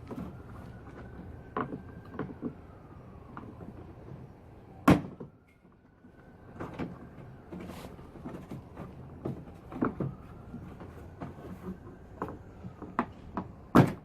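Plastic trim clips being pried out of a car's rear bumper with a flathead screwdriver. Scattered clicks and scraping run through it, with two loud sharp snaps, about five seconds in and at the very end, as clips pop free.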